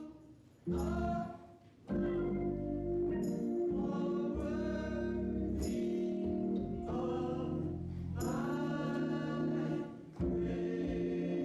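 Church choir singing a gospel song in sung phrases over held accompanying chords, with short breaks between phrases near the start and about ten seconds in.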